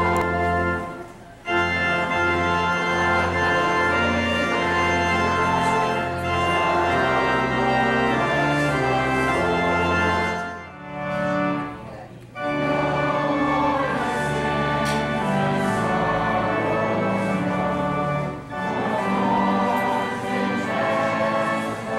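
Church organ playing slow held chords over a sustained bass, pausing briefly about a second in and again about halfway through.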